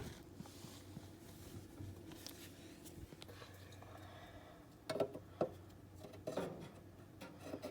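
Faint handling noise: a few light clicks and rattles about five seconds in and again a little after six seconds, over a low steady hum.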